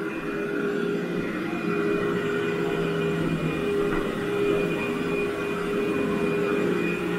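Vacuum cleaner running steadily with a constant motor whine, pre-vacuuming dry soil out of a heavily soiled carpet.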